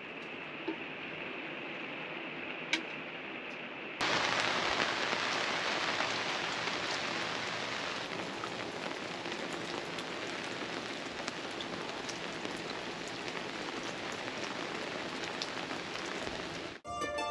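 Steady rain falling, duller for about the first four seconds, then suddenly brighter and a little louder. Music starts near the end.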